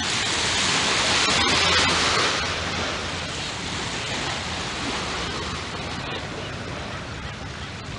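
Shore ambience: a steady rushing hiss of breeze and small waves. It swells over the first couple of seconds, then eases.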